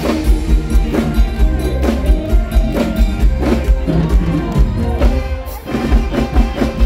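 Live band music over a loud PA, with a drum kit keeping a steady kick-drum beat and a male singer's voice through the microphone. The music drops briefly about five and a half seconds in.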